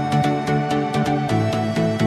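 Background music with a steady beat and held chords.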